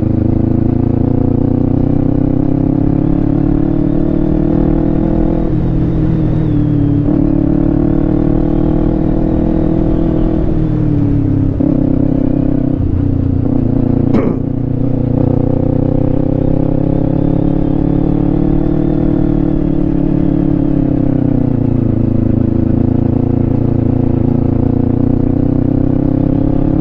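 Kawasaki Ninja 250 FI's parallel-twin engine running on the move, its pitch rising and falling several times with the throttle. One sharp click about halfway through.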